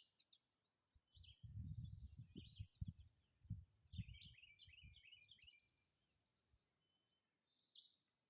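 Small songbirds chirping and twittering, many quick high notes overlapping, busiest between about four and five seconds in. Irregular low rumbling thumps come and go through the first half.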